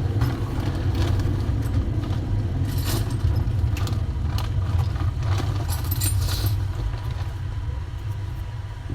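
Scattered small clicks and rustles of wires being handled and joined while a fridge thermostat sensor is fitted, over a steady low background rumble.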